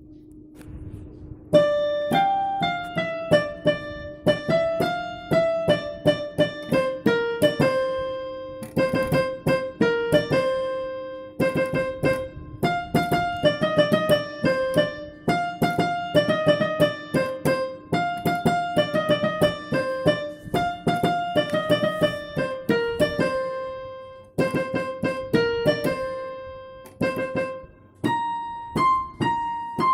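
Background piano music: a light keyboard melody of quick repeated notes, starting about a second and a half in.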